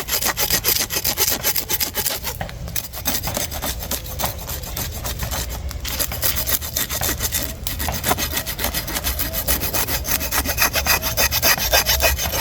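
Rapid, repeated scraping strokes as the skin of a fire-roasted iguana is stripped off.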